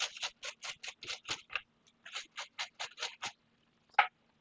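Toothbrush scrubbing flux off a wet circuit board in quick back-and-forth strokes, about five a second, with a short pause midway; the scrubbing stops a little after three seconds. A single sharp tap, the loudest sound, comes about four seconds in.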